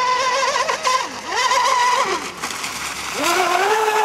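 Mean Machine 1717 RC boat's electric motor whining under power on a 6S LiPo pack. Its pitch wavers and dips twice, then climbs about three seconds in and holds steady.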